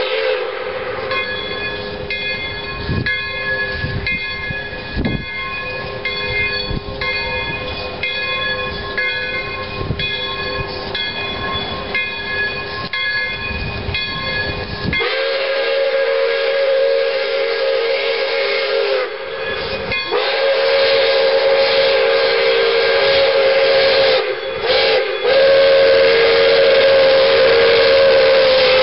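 Steam locomotive Pere Marquette 1225, a 2-8-4 Berkshire, sounding its steam whistle for a grade crossing in the long-long-short-long pattern: two long blasts, a brief short one, then a final long blast. For the first half, before the whistle, a bell rings in a steady repeating pattern.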